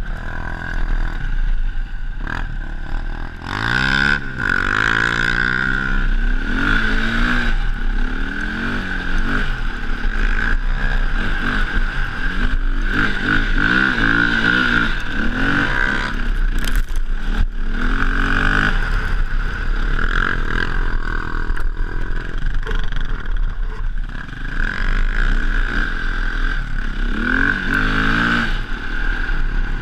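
KTM dirt bike engine being ridden, its pitch repeatedly rising as the throttle is opened and dropping between shifts, over a steady low rumble.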